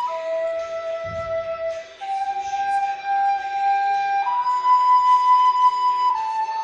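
Recorder playing a slow song melody in long held notes: a high note, a lower one, a step up, then back to the high note and a slightly lower one near the end.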